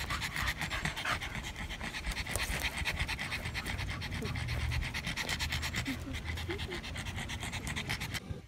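Pug panting, a fast, steady, even rhythm of short breaths.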